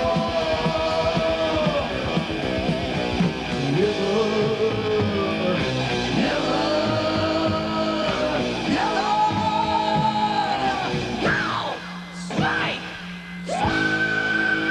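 Heavy metal band playing, with a singer holding long, arching sung lines over electric guitars and drums. Near the end the band thins out briefly into sweeping pitch glides, then a high sung note is held.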